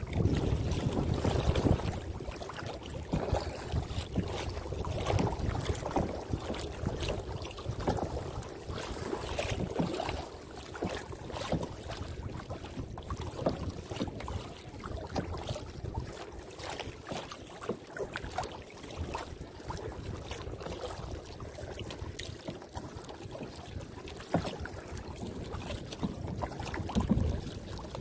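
Kayak paddle strokes dipping and splashing in the water as the boat glides along, with wind rumbling on the microphone for the first couple of seconds.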